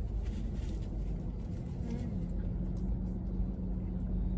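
Low, steady hum of a car's cabin with the engine idling. About halfway through, a faint hum tone dips slightly in pitch and then holds steady.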